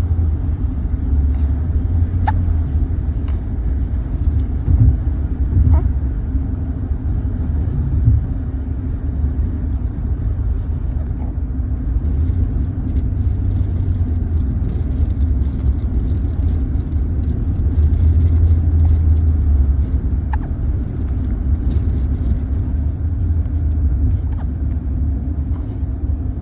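A steady low rumble with a constant hum, with a few faint short clicks.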